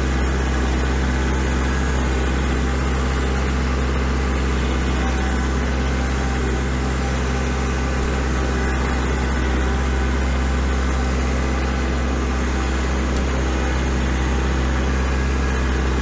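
Kubota L4701 tractor's diesel engine running steadily at a constant pitch while the tractor drives through snow, heard from the operator's seat.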